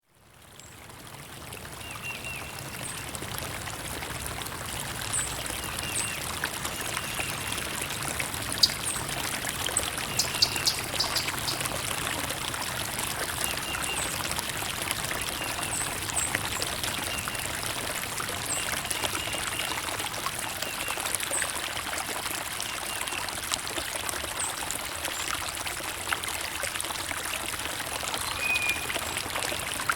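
Steady running water, a small stream trickling and splashing, fading in over the first second or so. Short high bird chirps come and go over it, with a cluster of sharper chirps about ten seconds in.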